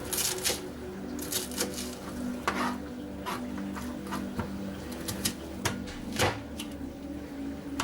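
Knife cutting food on a cutting board: a steel-bladed folding knife slicing onion, with irregular sharp knocks as the blade meets the board.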